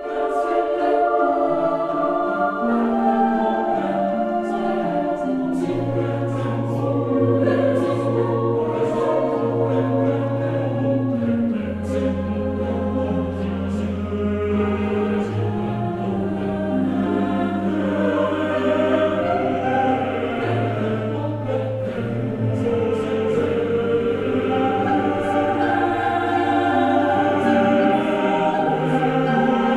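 Background choral music: a choir singing slow, held chords over long, steady bass notes.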